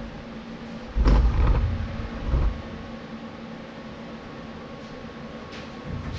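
Lincoln Square Wave TIG 200 welder's cooling fan running with a steady hum, broken by a heavy low thud about a second in, a smaller one a second or so later, and a louder knock right at the end.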